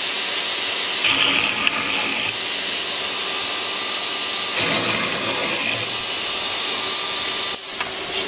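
CNC woodworking machine's boring unit drilling into wood over the steady high hiss of the running machine, with a louder burst of drilling about a second in and a heavier stretch of cutting around five seconds in.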